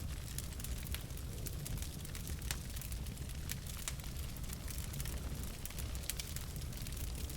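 Logs burning in a fireplace: a steady low rumble of the flames with frequent irregular sharp crackles and pops.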